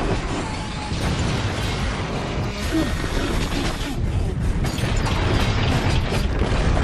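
Film sound effects of a steel-framed building under construction breaking up and collapsing: a heavy, continuous rumble of crashing debris and straining metal, with orchestral score underneath.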